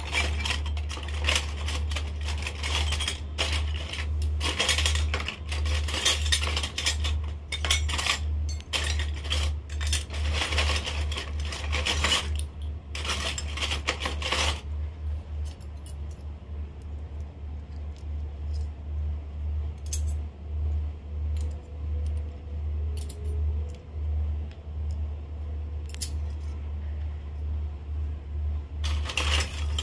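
Miniature stainless-steel toy pots, plates and spoons clinking and clattering as they are handled and set down on a stone floor. The clinks come thick and fast for about the first half, then only now and then, and pick up again near the end, over a steady low hum.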